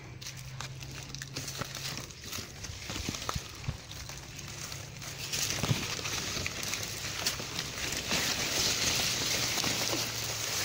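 Heliconia leaves and stems rustling and crackling as a hand pushes through them close to the microphone, growing louder and denser from about halfway in.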